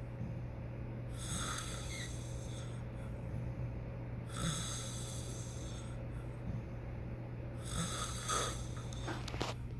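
Snoring in sleep: three slow, hissy snore breaths, about three seconds apart, over a steady low hum.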